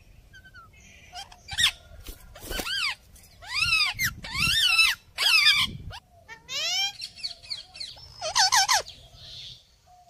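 Rose-ringed parakeets calling: a series of loud, screechy calls, each rising and then falling in pitch, starting about a second and a half in and coming in quick clusters until near the end.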